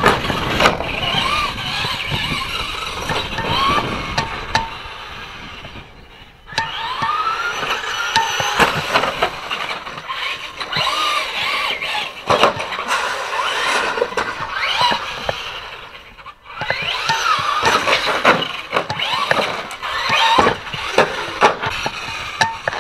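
Traxxas Slash RC truck's 12-turn brushed electric motor and drivetrain whining, rising and falling in pitch with the throttle, mixed with knocks and clicks. The whine drops away twice, about six and sixteen seconds in.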